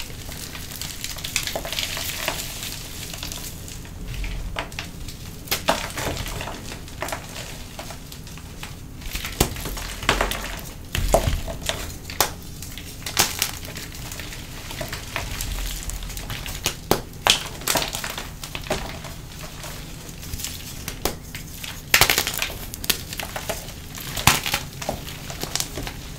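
Hands crushing and crumbling blocks of pressed gym chalk coated in a dried purple chalk-paste crust. A dense, crisp crunching runs through it, broken by irregular sharp snaps as chunks break, the loudest near the end.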